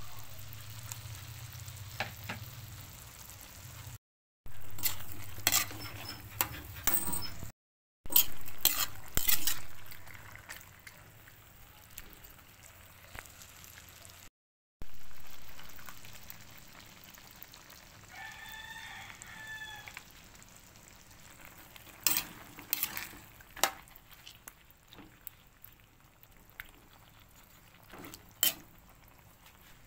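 Chicken pieces and chicken liver frying in a wok, a steady sizzle, with a metal spatula scraping and knocking against the wok in sharp clicks as the meat is stirred.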